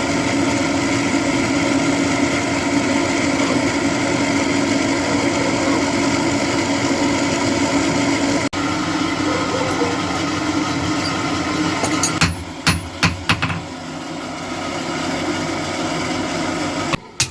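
A motor-driven workshop machine running steadily with a hum of several fixed tones, interrupted briefly partway through. Near the end a few sharp knocks come in quick succession while the machine keeps running, somewhat quieter.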